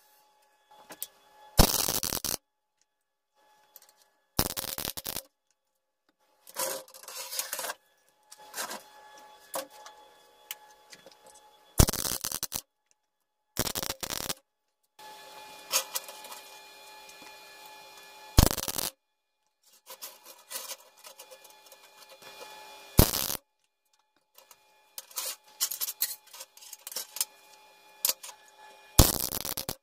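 MIG welder laying short tack welds on steel: a series of brief crackling bursts of the arc a few seconds apart, with quieter stretches of crackle and hum between them and abrupt silent gaps.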